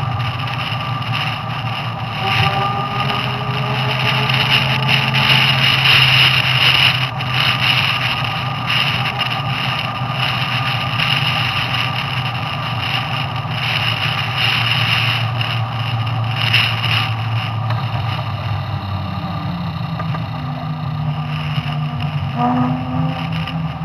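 Wind buffeting and tyre noise from an electric motorcycle with an EnerTrac hub motor cruising at highway speed in traffic, with a low steady hum under it. Near the end a car's engine is heard close alongside.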